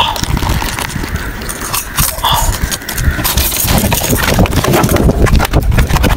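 Rapid irregular knocks and thumps, denser and louder from about three seconds in, as a landed barramundi flaps and is handled against wooden pier planks.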